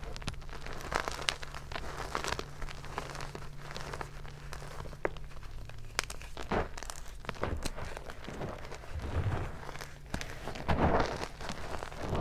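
Hands crushing and crumbling hard, glitter-covered blocks of gym chalk into powder: a continuous run of dry crunches and crackles, with louder crunches near the end.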